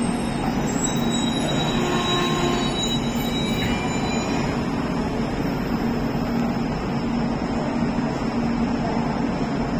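Steady drone of an LHB express train's coaches alongside, with a constant low hum and faint high squeaks now and then.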